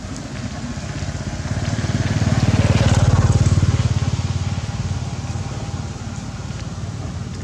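A motor vehicle's engine passing by, growing louder over about three seconds and then fading away.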